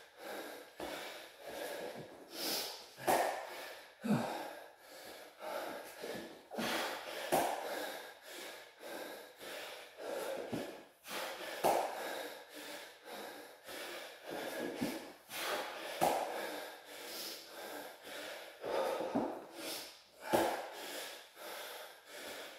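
A man breathing hard from exertion during bodyweight squats, with a short, forceful breath every second or two.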